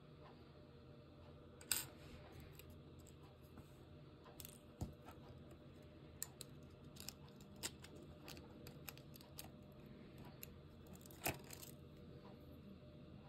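Near-silent room tone with a low steady hum and scattered small sharp clicks and taps, the two loudest about two seconds in and near the end.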